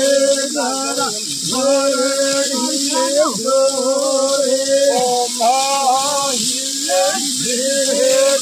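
A voice singing a melody in long held notes, over a steady high hiss.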